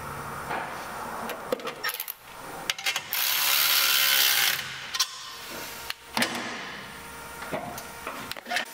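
Stainless exhaust tubing clinking and knocking as the pieces are handled and set in place. About three seconds in comes a steady hiss lasting about a second and a half: a TIG tack weld fixing the mocked-up downpipe section.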